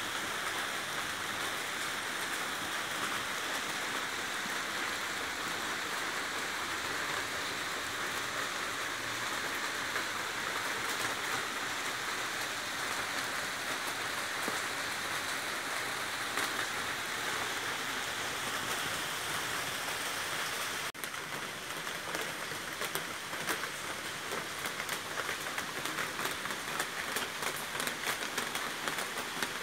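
Steady monsoon rain falling. About two-thirds of the way through, the sound changes abruptly to a closer patter of many separate drops.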